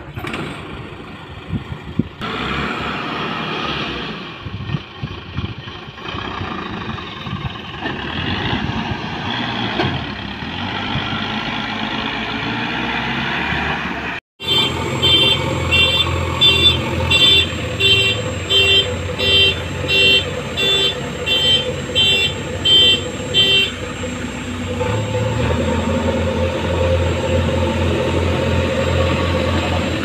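Heavy diesel machinery running. About halfway through comes a repeating electronic beep, roughly one a second for about ten beeps, like a backhoe loader's reversing alarm. After that a diesel engine runs steadily.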